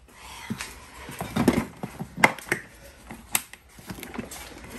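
Aluminium-framed hard carry case being handled and its metal latches snapped open: several sharp clicks and knocks, spread over a few seconds.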